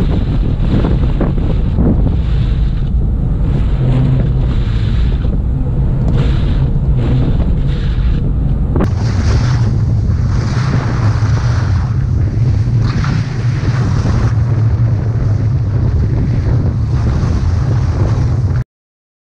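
Strong wind buffeting a GoPro action camera's microphone: a loud, steady rushing rumble. It cuts off suddenly near the end.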